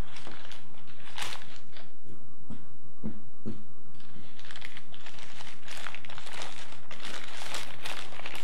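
Newspaper packing crinkling and rustling in the hands as a tape-wrapped bundle is pulled open, with a quieter pause and a couple of soft knocks about three seconds in, then more dense crinkling.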